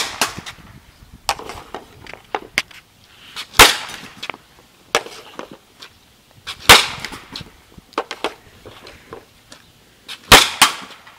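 A composite hockey stick, a Bauer Total One 102 flex, cracking pucks off a plastic shooting pad: four loud, sharp cracks about three seconds apart, with lighter clicks and knocks between.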